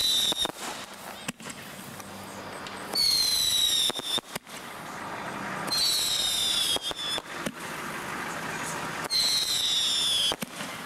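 Fireworks going off in quick succession: four high, slightly falling whistles of about a second each, about every three seconds, with sharp pops and crackles between them.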